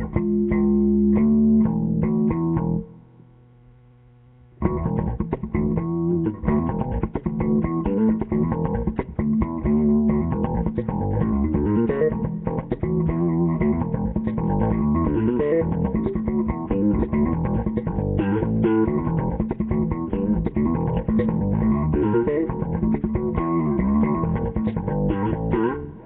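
Bass guitar played solo: a short run of notes, a pause of about two seconds, then a long stretch of busy, fast plucked lines.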